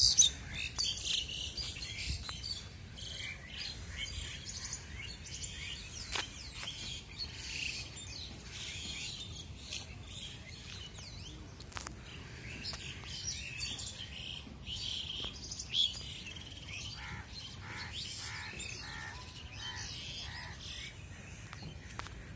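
Birds chirping and calling in the trees, many short overlapping chirps, with a run of evenly repeated notes near the end.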